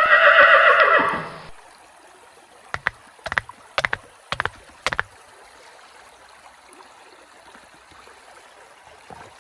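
Horse whinny lasting about a second and a half, which cuts off abruptly. A few seconds later come five sharp clicks, over the faint steady wash of a stream.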